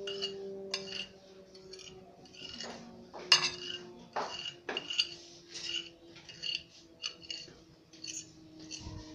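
A metal fork stirring pancit canton seasoning powder and oil in a glass plate, scraping and clinking against the glass in repeated short strokes, with a sharper clink about three seconds in.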